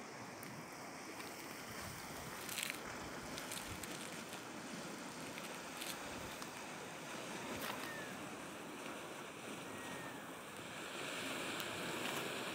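Sea waves washing against the rocks at the foot of a cliff: a steady wash of surf, with a few short clicks, the sharpest about two and a half seconds in.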